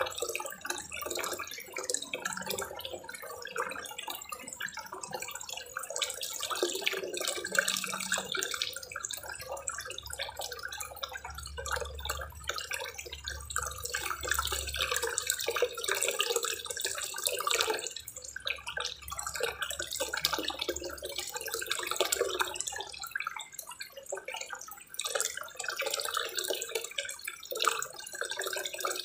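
Small pond waterfall: water pouring from a spillway spout into a koi pond, a continuous splashing of falling water.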